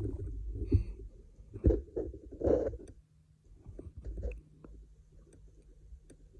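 Handling noise from a scope-mounted camera on an air rifle as the rifle is moved and re-aimed: low rumbling with a few soft knocks and rustles in the first half, then a quieter stretch with a faint low hum.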